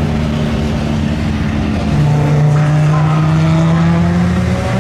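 Audi Sport Quattro S1 E2's turbocharged five-cylinder engine pulling hard under acceleration. It gets louder about two seconds in, and its note climbs steadily in pitch until near the end.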